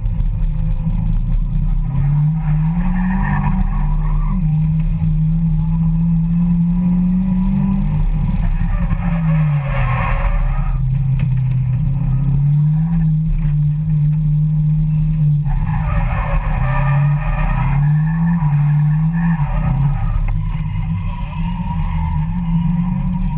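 A car engine heard from inside the cabin, revving up and down repeatedly as the car is drifted, while the tyres squeal in bursts about three seconds in, around ten seconds, and again for a few seconds from about sixteen seconds.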